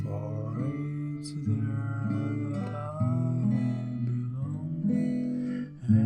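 Background music: strummed acoustic guitar chords with a soft sung or hummed melody line above.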